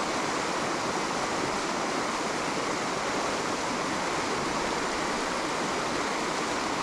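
Fast-flowing river water rushing in a steady, unbroken wash.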